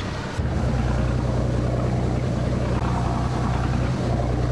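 Motorboat engine running steadily with a low, even hum, over a haze of water and wind noise. The engine sound comes in abruptly about half a second in.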